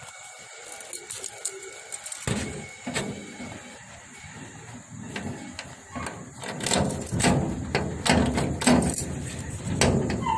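Keys jangling and clinking at the lock of a rusty sheet-metal door, with knocks and rattles of the metal door that grow busier and louder from about two seconds in.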